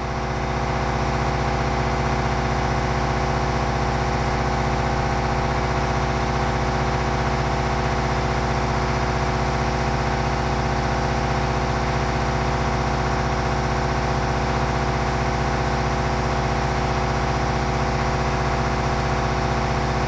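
An engine idling steadily: a constant drone with no change in speed or pitch.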